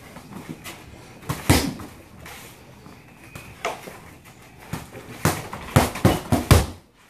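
Boxing-glove strikes landing on a hanging Title dummy bag, a series of sharp thuds: two close together about a second and a half in, single hits near four and five seconds, then a fast flurry of four in the last two seconds.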